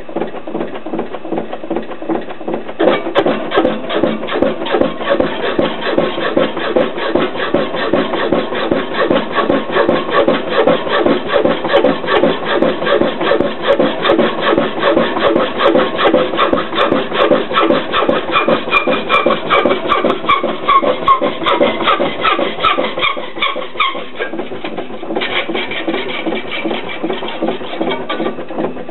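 Qualters & Smith HDS 8 power hacksaw cutting steel angle, its blade frame reciprocating in a steady rhythm of rasping strokes. It cuts dry, with a few drops of oil on the blade and no coolant. The strokes grow louder about three seconds in.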